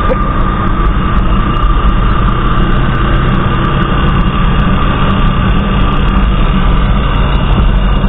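Yamaha motorcycle engine running steadily while the bike is ridden, a low engine drone with a steady higher whine over it.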